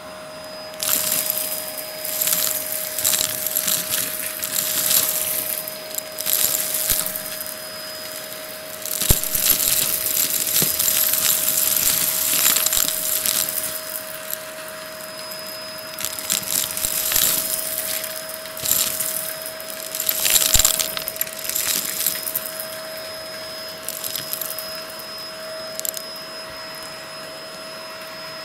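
Shark Navigator vacuum running with a steady motor whine while its rug tool sucks up loose rubber bands, seed hulls and bits of debris off a shaggy rug, in repeated surges of crunching and rattling as the debris is drawn up the hose.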